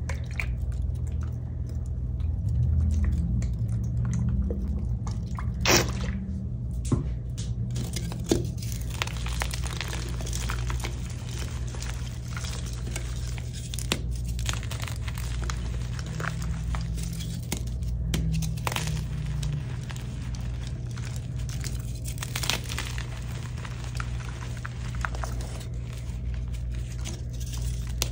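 Soft, crunchy dyed gym chalk blocks being squeezed and broken by hand in a bowl of chalk powder: a long run of soft crunching and crumbling, with a few sharper snaps about six to eight seconds in.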